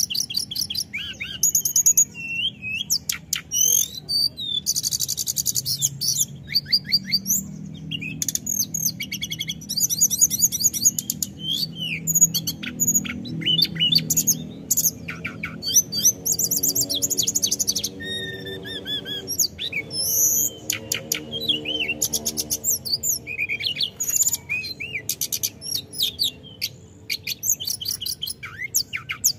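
Male hill blue flycatcher (tledekan gunung) singing continuously: fast, high-pitched rolling trills and rapid twittering phrases, one after another with only brief breaks.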